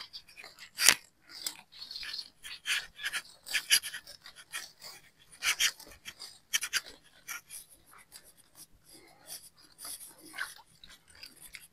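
Irregular knocks, rustles and water splashes from a fish trap being handled and emptied of its catch of eels and fish.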